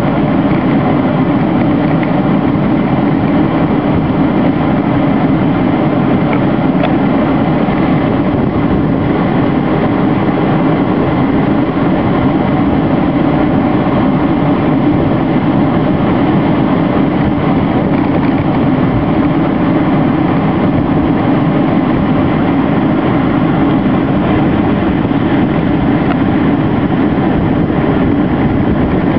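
Steady drone of a slow line of cars and SUVs passing on the road, engine and road noise running on without a break.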